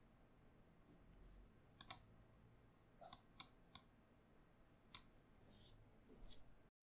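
Faint, scattered computer mouse clicks, about half a dozen at irregular intervals, over quiet room tone; near the end the sound cuts out to dead silence.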